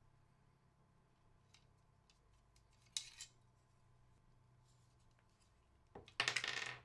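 Plastic PC case fan being handled while rubber anti-vibration mounts are pushed onto its corners: a short scraping rustle about three seconds in, then a click and a louder, longer scrape near the end.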